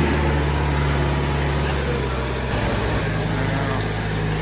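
A vehicle engine running steadily at idle, its note shifting a little past halfway.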